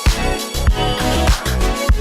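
Background music with a steady beat and bass, in a funk style.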